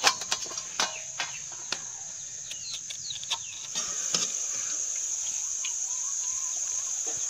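Crickets give a steady high-pitched drone throughout, with a few sharp clicks in the first seconds as a knife slits okra on a steel plate. From about four seconds in, a slightly louder, even hiss of bajji frying in oil in a kadai comes in.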